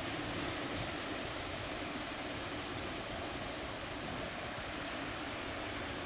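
Steady wash of breaking ocean surf, an even rushing noise with no distinct crashes.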